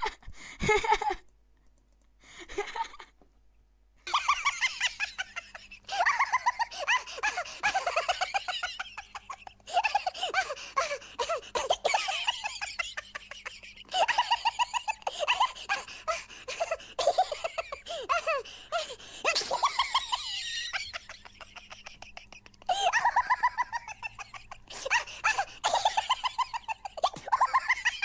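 Long fits of high-pitched laughter in rapid pulsing bursts, starting about four seconds in and going on with short breaks for breath.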